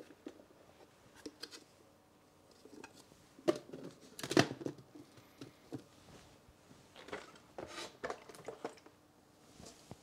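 Hard plastic clicks and knocks as a steeping basket and lid are set into an ice-filled plastic pitcher and the pitcher's lid is pressed on. Two louder knocks come near the middle, with a run of lighter clatter a few seconds later.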